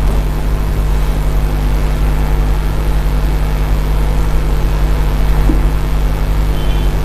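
A steady low hum that runs on unchanged.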